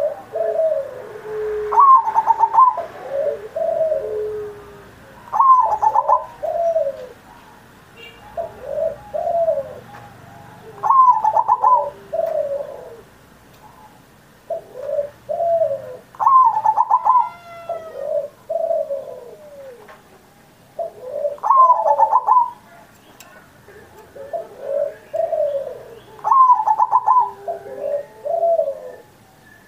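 Zebra dove (perkutut) in full song, cooing the same phrase over and over, about once every five seconds. Each phrase opens on a higher note and drops into a run of lower rolling coos.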